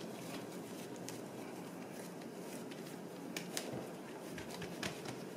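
Hands kneading and shaping soft bread dough on a silicone baking mat: soft rubbing and handling noise, with a few sharp taps in the second half.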